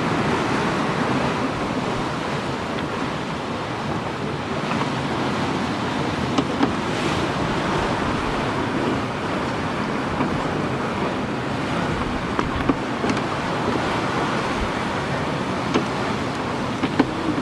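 Sea water rushing and splashing along a sailing schooner's hull with wind, a steady wash of noise. A few short sharp clicks stand out now and then.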